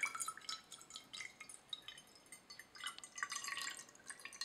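Water poured from a glass measuring cup into a shallow glass dish, splashing with irregular small pitched plinks and drips, thinning out midway and picking up again.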